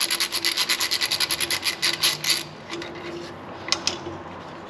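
Fast, rhythmic scraping of a hand tool against metal at a rear diff housing, about eight or nine strokes a second. It stops about two and a half seconds in, leaving a few light clicks.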